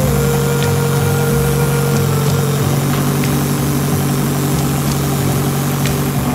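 An engine idling steadily: a low, even hum with a fluttering pulse underneath.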